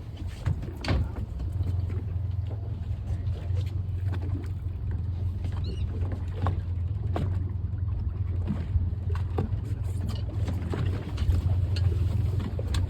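Steady low rumble of a fishing boat on the open water, with scattered knocks and clicks on deck.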